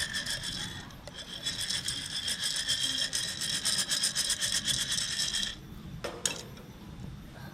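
Coffee beans rattling inside a porcelain hand roaster shaken over a campfire, late in the roast with the beans going dark. The shaking pauses briefly about a second in, then stops after about five and a half seconds, followed by a couple of sharp clicks.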